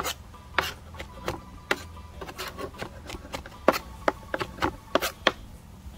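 Kitchen knife chopping diced conch on a plastic cutting board: a run of sharp, irregular knocks, two or three a second, as the cubes are chopped finer.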